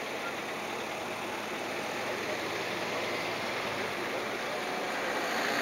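Boeing 777 freighter's GE90 jet engines on final approach: a steady rushing noise that grows slowly louder as the aircraft draws nearer.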